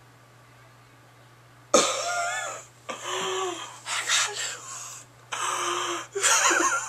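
A man's loud, wordless excited shrieks in about five bursts, starting about two seconds in after quiet room tone.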